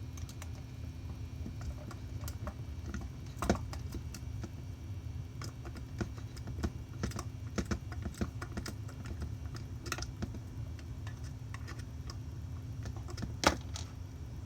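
Irregular light clicks and taps of a hand screwdriver and small screws and parts being handled while screws are driven by hand into a cup turner's frame, with two sharper knocks, one about three and a half seconds in and one near the end. A steady low hum runs underneath.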